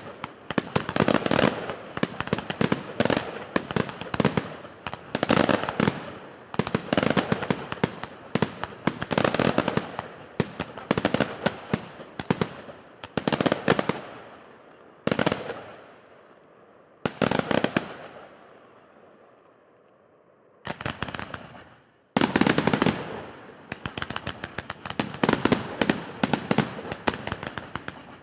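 Fireworks display: rapid volleys of bangs and crackling firecrackers, coming in clusters. About two-thirds of the way through the bangs die away briefly, the last ones echoing and fading, then the volleys start again.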